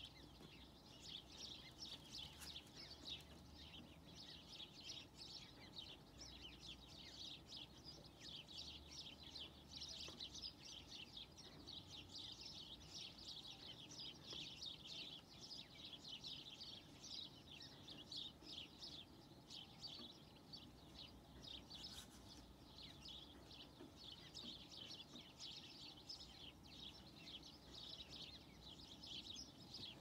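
A flock of small songbirds chirping continuously, many quick, high chirps overlapping, heard faintly through a window.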